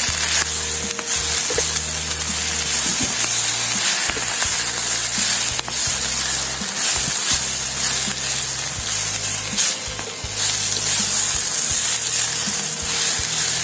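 Vegetables sizzling in a hot stainless steel pan with soy sauce and stir-fry sauce just added, stirred with a wooden spatula. A steady hiss runs under short clacks and scrapes of the spatula against the pan.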